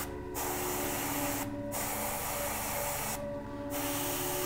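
Airbrush spraying thinned acrylic paint: a steady hiss of air that breaks off twice for a moment as the trigger is let off and pressed again, giving three short bursts.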